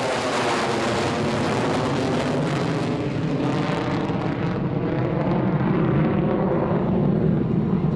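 Jet noise of a B-1B Lancer bomber's four turbofan engines on a fly-by pass, with a sweep that keeps falling in pitch as it goes by. The high hiss fades about halfway through as the aircraft moves away.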